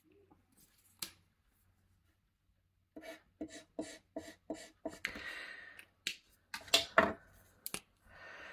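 Plastic alcohol markers being handled and uncapped: a quick run of light clicks and taps, about three a second, with two short rustling stretches between them.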